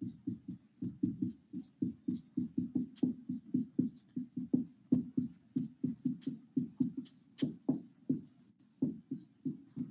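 Red dry-erase marker squeaking on a whiteboard in quick short strokes, about five a second, as a line of capital letters is written, with a few sharper taps of the tip among them.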